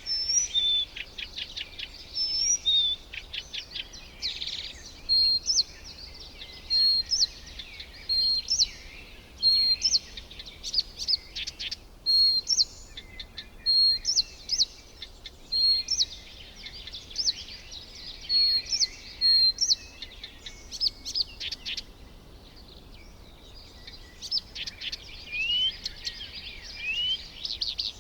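Several wild birds calling: a steady stream of short, high chirps and quick trills, with a few rising whistled notes near the end.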